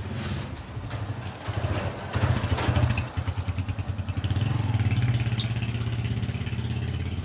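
A motor vehicle engine running close by with a steady low hum, getting louder and rougher for a moment about two to three seconds in.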